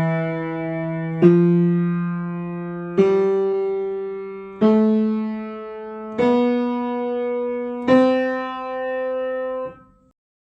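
Piano played one note at a time: a slow rising run of five single notes struck about every second and a half, each ringing until the next. The last note is held and then damped off shortly before the end.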